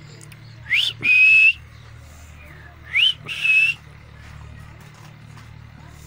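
Alexandrine parakeet whistling twice, about two seconds apart. Each whistle is a quick rising note followed by a held level note.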